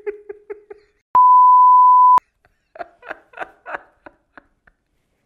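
A man laughing in short, quick bursts, broken about a second in by a steady, loud, single-pitch beep lasting about a second, like an edited-in censor bleep; the bursts of laughter resume after it.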